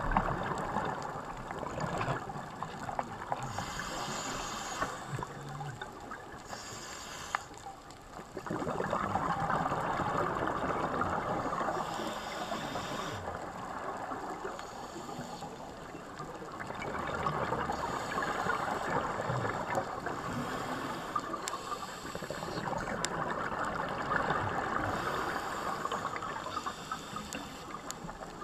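A scuba diver breathing through a regulator underwater: a short hiss of each inhalation every few seconds, alternating with longer gurgling rushes of exhaled bubbles, heard through the camera's underwater housing.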